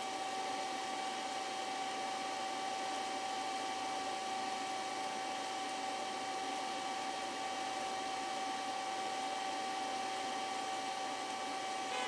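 A small electric blower running steadily: an even airy hiss with a constant high whine.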